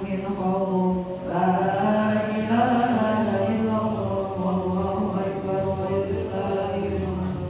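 A man's voice chanting Qur'anic recitation in a slow melodic line of long held notes with gentle pitch bends, pausing briefly for breath about a second in.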